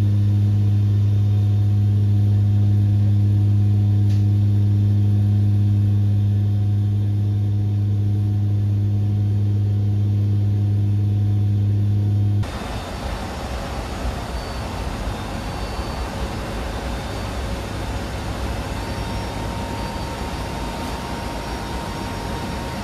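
C-130J's Rolls-Royce turboprops with six-bladed propellers in flight: a loud, steady, deep propeller drone with overtones. About twelve seconds in it changes abruptly to an even rush of wind noise over the engines, as with the cargo ramp open in flight.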